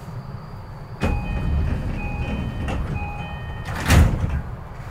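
Door-closing sequence on an E233-5000 series electric commuter train at a station stop. A door chime sounds three times, about a second apart, and then the sliding doors shut with a loud thud a little before the end.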